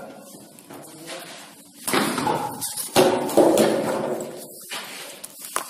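A cricket bat hitting a ball, with sharp knocks about two and three seconds in that echo in a bare concrete room. Voices call out right after.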